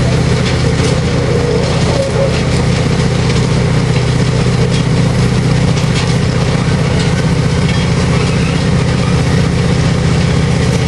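Engine of a train standing on the tracks, idling with a steady low rumble.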